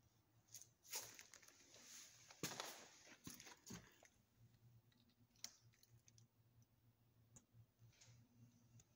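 Near silence: room tone with faint rustling and a few soft clicks, mostly in the first four seconds.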